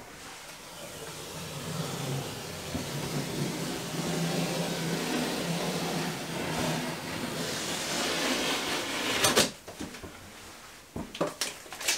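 Blue painter's tape being peeled off a caulked tub surround joint, a continuous ripping noise that grows louder over several seconds. A loud sharp rip comes about nine seconds in as the strip pulls free, followed by a few soft rustles and clicks.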